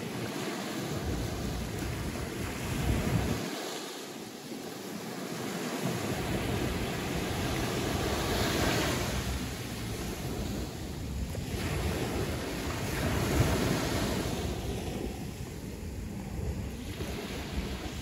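Caribbean sea waves washing in, swelling and falling back in surges several seconds apart, with wind rumbling on the microphone now and then.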